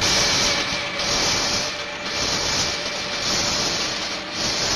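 Mine shaft cage descending with a steady mechanical rumble. A rhythmic hiss swells about once a second over it.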